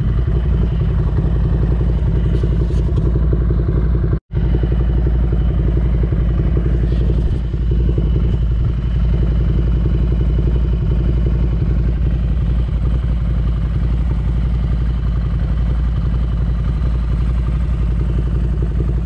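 Ducati Scrambler Desert Sled's air-cooled L-twin engine running steadily under way. The sound cuts out for an instant about four seconds in.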